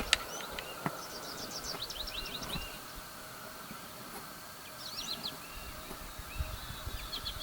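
Outdoor ambience: a small bird chirps in quick runs of short notes a few times, over a steady faint drone of insects.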